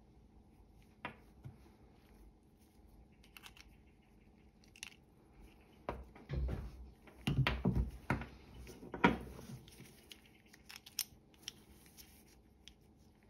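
Small metal parts of a pair of secateurs being handled: the pivot nut, bolt and washers clicking and clinking as they are picked up and set down on a wooden workbench. Scattered light clicks, with a denser run of louder knocks and rattles about six to nine seconds in.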